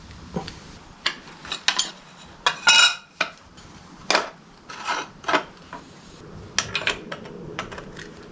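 Irregular metallic clinks and clatters of tools and small metal parts being handled during reassembly of a British Seagull outboard motor, with a short scraping rattle about three seconds in.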